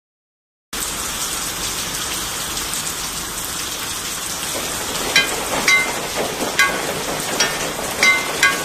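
Steady rain falling, starting abruptly just under a second in. From about five seconds on, single drops land with short, ringing plinks at a few different pitches, several in a row.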